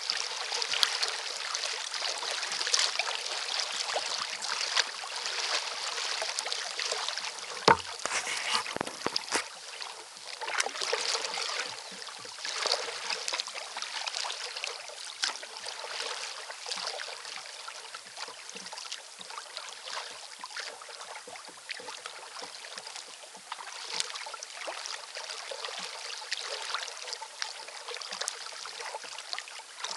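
Kayak paddle strokes splashing and dripping, with water lapping at the hull of a recreational kayak under way; a single sharper thump comes about eight seconds in.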